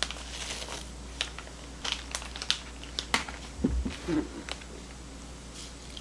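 Paper packet of dried seaweed crinkling as the brittle pieces are shaken out into a glass bowl and some put back, with scattered light clicks and crackles and a soft knock a little past halfway.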